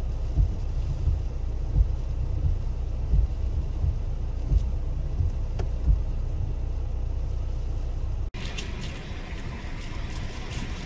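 Wind buffeting the microphone: a steady low rumble with occasional thumps. About eight seconds in the sound cuts to a brighter rushing wind noise.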